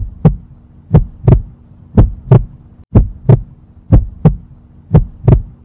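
Heartbeat sound effect: a double thump, lub-dub, about once a second, over a low steady hum.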